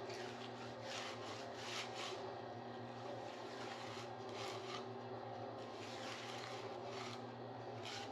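Electric concrete mixer running with a steady hum, overlaid by repeated rough scraping of wet concrete.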